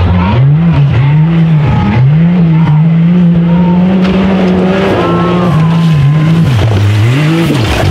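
Race UTV buggy's engine revving hard under full throttle, the pitch rising and falling over and over and held high for about two seconds in the middle.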